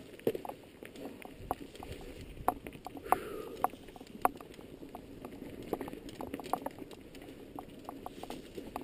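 Mountain bike rattling along a rocky singletrack: irregular sharp clicks and knocks from the bike's chain, frame and tyres hitting stones over a steady rolling rumble of tyres on dirt and gravel. A short falling squeak about three seconds in.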